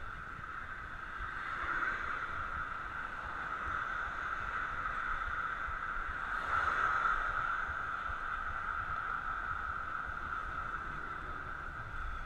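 Riding noise of a bicycle on 700x35 Nimbus Armadillo tyres: a steady mid-pitched hum over a low rumble of wind on the microphone, swelling a little about two seconds in and again around seven seconds.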